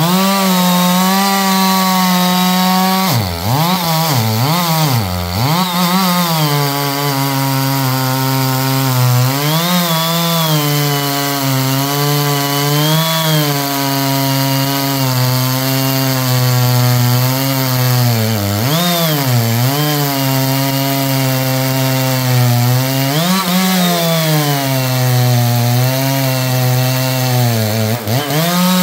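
Chainsaw running at high revs and cutting through black walnut hardwood. Its engine pitch dips several times as the chain bogs down in the cut, then climbs back up.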